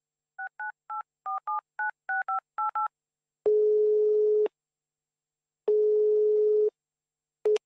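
A phone number being dialled on a telephone keypad: about eleven quick two-tone keypad beeps, then the ringing tone on the line, two one-second tones about a second apart, and a short blip near the end as the call connects.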